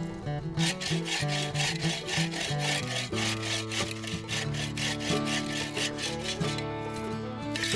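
Hand saw cutting through wood in quick, even back-and-forth strokes. The sawing starts about half a second in and stops near the end, over background music.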